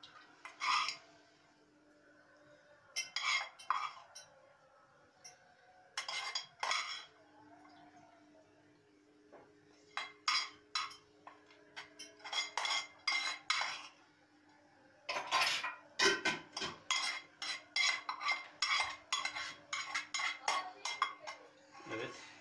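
A spoon scraping and tapping against a non-stick frying pan as minced meat is served out of it onto plates: scattered clusters of clinks at first, then a fast run of taps and scrapes from about two-thirds of the way in.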